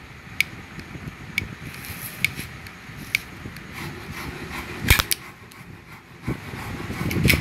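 Bolt of a Winchester Model 1904 single-shot .22 rifle worked by hand to test its repaired ejector: light metallic clicks about once a second, then a louder double click about five seconds in. Near the end, a sliding metal-on-metal noise ends in another click.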